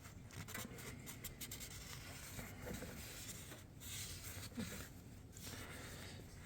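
A rag rubbing and wiping, with light scratchy strokes and a few soft taps, cleaning oil and built-up sludge off engine parts.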